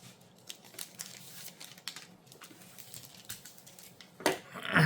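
Trading cards and a foil booster-pack wrapper being handled: faint scattered clicks and rustles of cards being shuffled through, then a louder crinkling rustle near the end.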